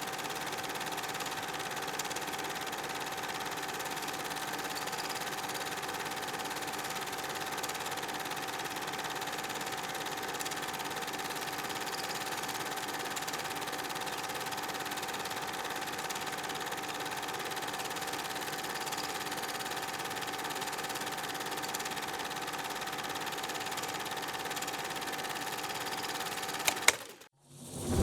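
Vintage slide projector running: a steady motor-and-fan hum with a constant whine. Near the end there is a sharp click and the hum cuts off.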